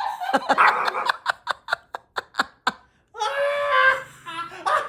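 A person laughing in rapid short bursts, about four a second, followed about three seconds in by a high-pitched voice lasting about a second.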